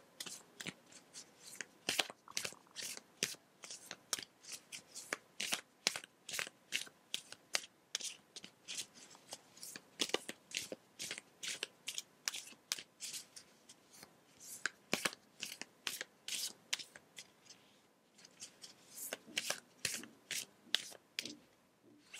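A deck of oracle cards being thumbed off one card at a time from hand to hand: a steady run of short card snaps and swishes, about two or three a second, with a brief lull near the end.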